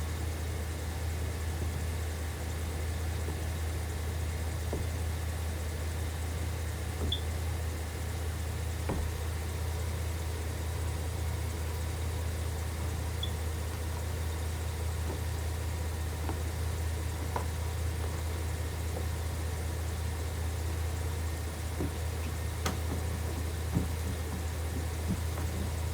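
Vehicle engine idling, heard as a steady low hum with a few faint clicks.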